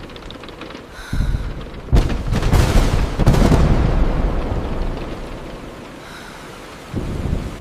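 A thunderclap breaks sharply about two seconds in, then rolls and rumbles away over several seconds, over steady rain on the car's windshield and roof. Shorter low rumbles come about a second in and near the end.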